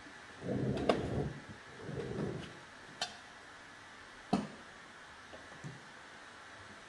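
Paintbrush scrubbing on a painted wooden cupboard: two short brushing strokes, then a few sharp light clicks, the strongest about four seconds in.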